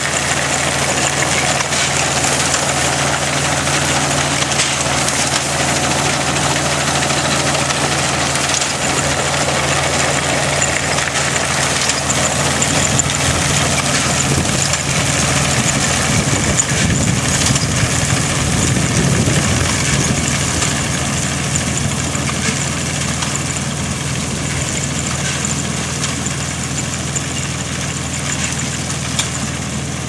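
Farmall Super H tractor's engine running steadily as it pulls a McCormick-Deering grain binder, the binder's mechanism clattering as it cuts wheat and ties it into bundles. A heavier low rumble swells for a few seconds past the middle.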